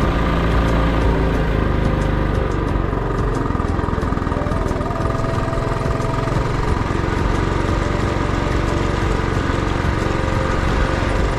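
Motorcycle engine running steadily while riding on a rough dirt road, with wind and road noise and small clicks and rattles. The engine note changes about two and a half seconds in.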